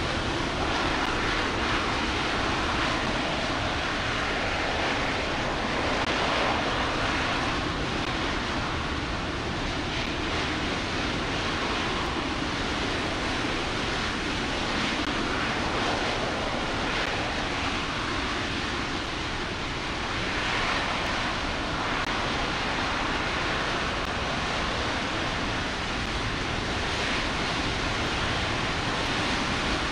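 RS-25 liquid-hydrogen/liquid-oxygen rocket engine firing continuously during a ground hot-fire test: a steady, even rushing noise with no distinct tones and no change in level.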